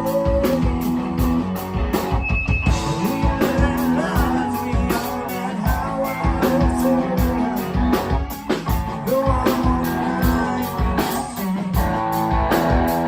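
Live rock band playing with guitars, bass and drums keeping a steady beat.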